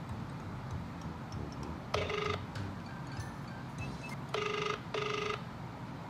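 Ringback tone of an outgoing mobile call playing through an iPhone's loudspeaker while the line rings unanswered: short buzzy pulses, one about two seconds in and a quick pair near the end.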